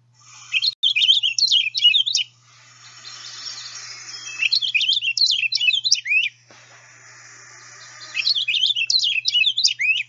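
Purple finch song played from a recording: three bouts of a rich, fast, slurred warble, each about two seconds long, over a faint steady low hum.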